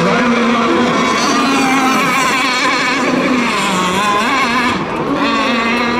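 Several radio-controlled racing boats running laps together, their small motors making a high, overlapping whine whose pitches waver up and down as the boats speed along and turn.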